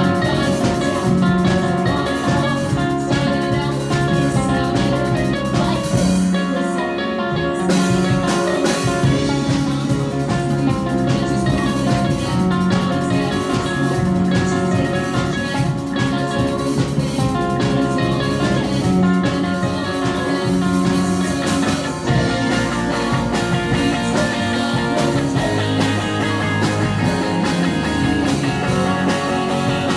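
A live rock band playing: drum kit, electric guitar and keyboard, loud and steady. The low end and cymbals drop out for a moment about six seconds in, then the full band comes back.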